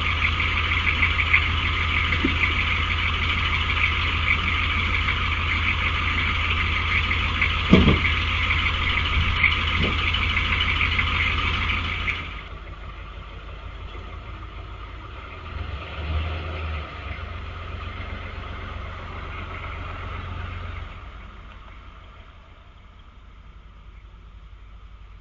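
Pickup truck engine idling loudly and steadily, with a few short knocks, the loudest about eight seconds in. About twelve seconds in the sound drops abruptly to a quieter engine as a pickup drives off along the street, fading out near the end.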